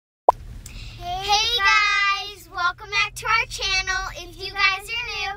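A child's voice singing in long, bending high notes, starting right after a sharp click about a quarter second in, over a low steady hum.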